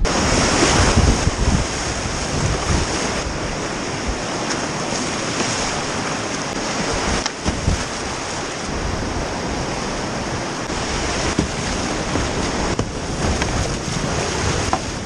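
River rapids rushing and splashing around a whitewater kayak as it runs down a rocky drop, with water spraying over the camera.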